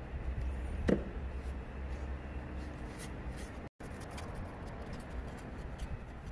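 Soft handling sounds as a cloth is rubbed along a knife blade: light rubbing and small clicks, with one sharper knock about a second in, over a steady low hum.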